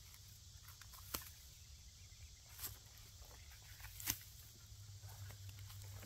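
Footsteps wading through tall, dense weeds: faint rustling of stalks and leaves brushing past, with three sharp snaps about a second and a half apart.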